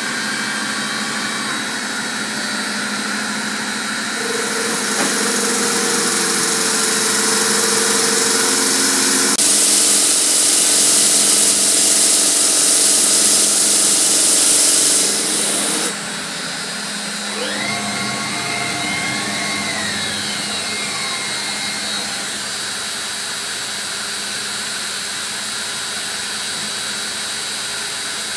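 CNC bridge saw cutting a Yorkstone slab with a water-cooled circular blade: a steady motor hum with a hiss that grows louder about four seconds in and drops away suddenly around halfway. Then come a few rising and falling whines as the machine moves its saw head.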